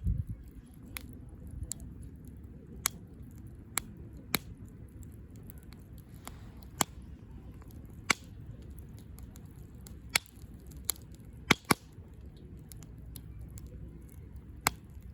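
Wood campfire burning with a low steady rumble, broken by sharp, irregular pops and crackles, about a dozen in all, with two close together near the end.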